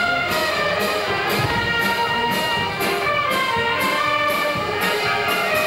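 Brass band playing a march, sustained brass notes over a steady beat about twice a second.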